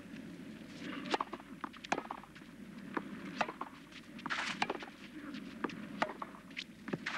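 A tennis rally on a clay court: sharp pops of racquets striking the ball, mixed with ball bounces and players' footsteps, and a short scuffing noise about four seconds in.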